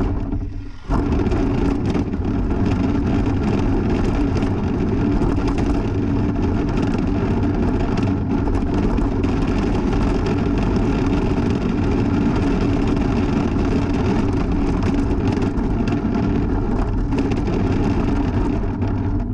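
Tamiya Aeromax RC semi and its lowboy trailer rolling over rough pavement, heard from a camera on the trailer: a loud, steady rumble and rattle with a constant low hum. It starts abruptly and steps up about a second in.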